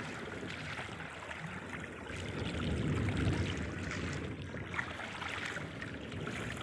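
Sea water sloshing and lapping against the hull of a small outrigger boat, a steady wash that swells for a couple of seconds in the middle.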